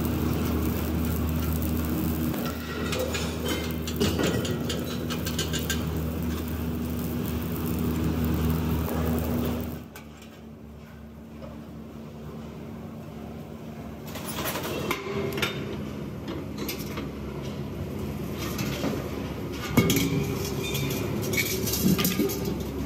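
Steady machine hum from the cylinder welding rig that holds a steel LPG cylinder body; it cuts off about ten seconds in. From midway on come irregular metallic clanks and knocks as steel cylinder bodies are handled, the loudest a sharp clank near the end.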